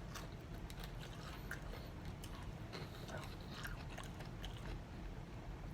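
Faint wet chewing of chicken wings close to the microphone, with small scattered clicks and smacks.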